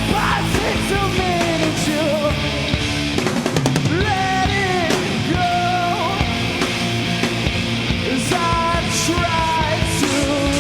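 Rock band playing live and loud: distorted guitars and drums in a punk-rock style, with a singer's voice over the top.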